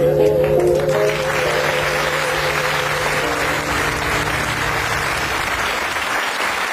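Studio audience applauding steadily. Music with held, wavering notes fades out during the first few seconds as the applause swells.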